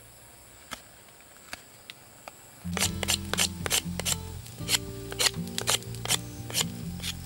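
A few light clicks, then background music comes in about three seconds in, with changing bass notes and a sharp clicking beat.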